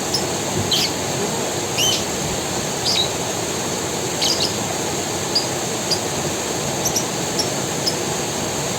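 Forest creek water running steadily, with a bird giving short, falling chirps about once a second over it.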